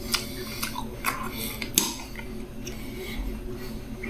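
A fork clinking and scraping against a plate, a handful of light knocks and scrapes.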